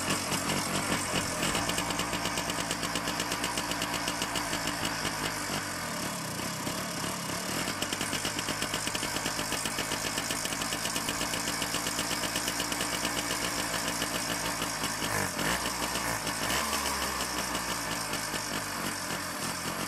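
Jawa 50 Pionýr's single-cylinder two-stroke engine, fitted with a minibike carburettor, running steadily just after starting, with the engine speed dipping and picking up again about fifteen seconds in.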